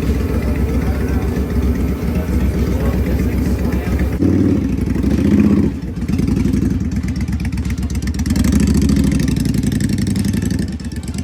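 Motorcycle engine running with a rapid low pulse, blipped louder twice: once a little past the middle and again near the end.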